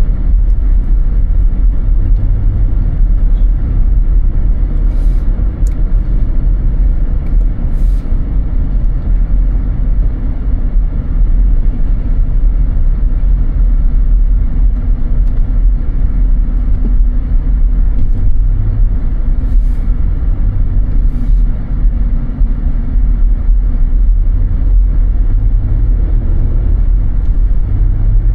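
Car driving: a steady, loud low rumble of road and engine noise, with a few faint clicks.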